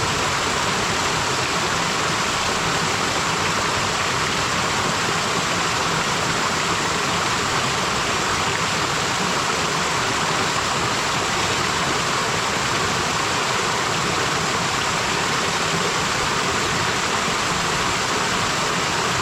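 Waterfall and stream water pouring and splashing in a steady rush.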